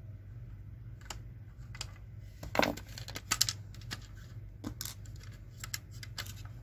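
Irregular small clicks and taps of objects being handled, the loudest a short cluster about two and a half to three and a half seconds in, over a low steady hum.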